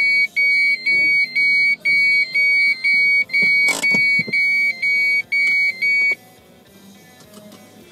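Electronic beeper sounding a steady, high-pitched beep about twice a second, cutting off suddenly about six seconds in. A single click comes midway through the beeping.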